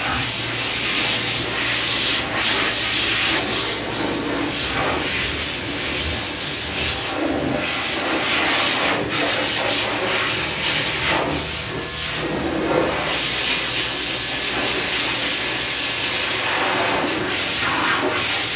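Electric pet grooming clipper running with a steady low hum. Over it a loud hiss that swells and fades as the blade passes through the dog's coat.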